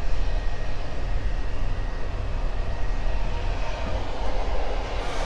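Steady low hum with an even rushing noise, with no speech over it.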